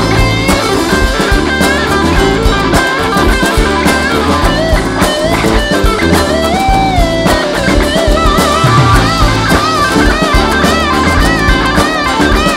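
Live rock band playing an instrumental passage without vocals: an electric guitar lead melody with bends and vibrato over strummed acoustic guitar and drum kit.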